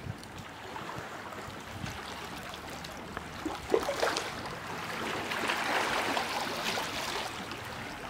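Small sea waves lapping and washing over flat rocks and pebbles at the water's edge, with a trickling sound among the stones. A few soft clicks come about halfway, and the wash grows louder for a couple of seconds after that.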